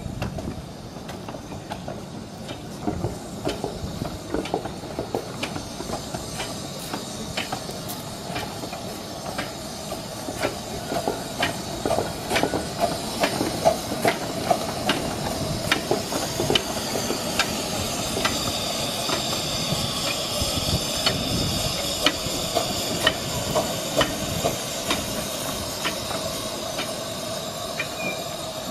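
A 15-inch-gauge steam train rolling slowly past: the wheels click over the rail joints in an even rhythm, about three clicks every two seconds. From about halfway through, the locomotive hisses steam.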